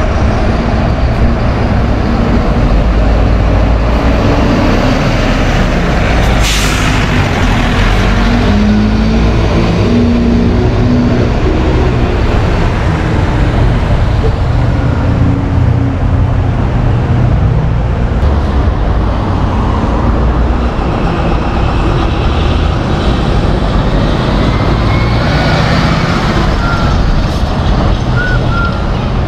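City bus engines running in heavy street traffic, with a sudden burst of air-brake hiss about seven seconds in.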